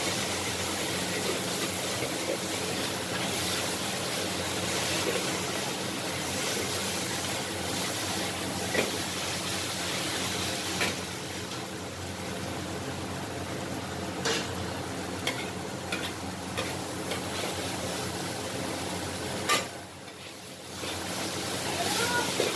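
Flat rice noodles sizzling in a wok over high heat, stirred and tossed with a metal spatula that scrapes and clacks against the pan. A sharp clank about three-quarters through, then a brief lull.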